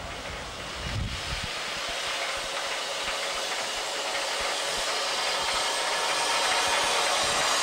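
Prussian T11 tank steam locomotive approaching with a steady hiss of escaping steam that grows louder as it comes near.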